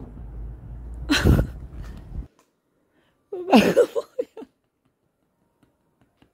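A grey cat, held up against its will for nail clipping, gives a short protesting yowl about three and a half seconds in. Before that there is a steady low outdoor hum with one brief loud sound about a second in, and the hum cuts off abruptly.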